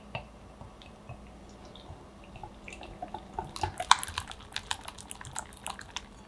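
A whisk beating egg yolks and vanilla extract in a glass bowl. A few light taps at first, then quick, wet clicking and sloshing from about three seconds in as the whisking speeds up.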